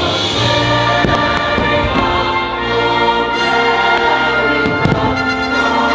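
Loud orchestral music from a fireworks show soundtrack, with several sharp bangs through it.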